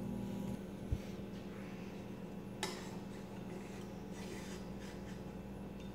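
Quiet handling of the steel pancake die as it is moved and set into the hydraulic press: a soft thump about a second in and a light knock later, over a steady low hum.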